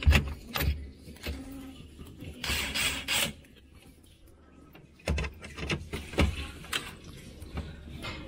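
Screwdriver and hands working on the plastic cover panel inside a refrigerator compartment, fastening its screws: scattered clicks and knocks, with a short scraping rush about two and a half seconds in and another cluster of knocks about five seconds in.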